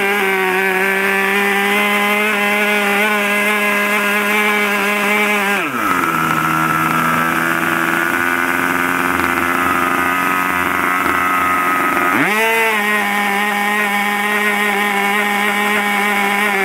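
Super Tigre G-51 two-stroke glow engine of an RC model plane running at high revs, throttled back to a lower steady speed for about six seconds, then opened up again to full revs, with a drop in revs starting at the very end.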